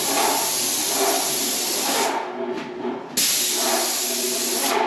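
Graco 695 airless paint sprayer gun spraying paint: a steady loud hiss from the spray tip, cut off when the trigger is released about two seconds in, then a second spraying pass of about a second and a half that stops just before the end.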